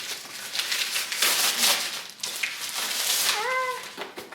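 Plastic packaging crinkling and rustling as a package is handled and opened. About three seconds in comes a short, high-pitched rising call.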